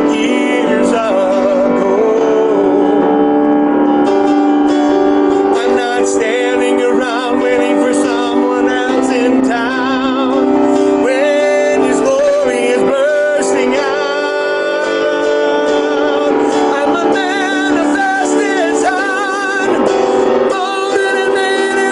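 A man singing a newly written worship song with vibrato over sustained chord accompaniment.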